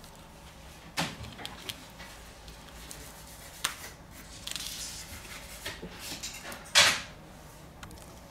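Small hand tools and phone parts being handled on a repair bench: scattered light clicks and taps, a brief scrape midway, and one louder clack near the end.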